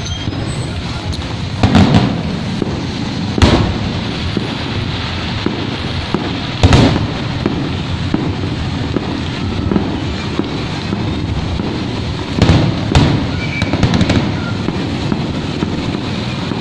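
Aerial fireworks bursting: about six sharp bangs at irregular intervals, several seconds apart at first and then three in quick succession near the end. Under them runs a steady hiss of rain.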